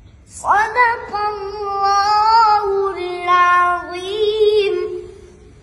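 A boy's high voice reciting the Qur'an in melodic tilawah style, drawing out long, wavering ornamented notes. It starts about half a second in and fades near the end.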